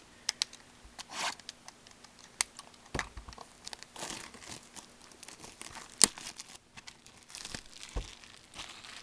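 Plastic wrapping on a factory-sealed trading card box being torn open and crinkled, in irregular crackles and small clicks, with one sharper snap about six seconds in.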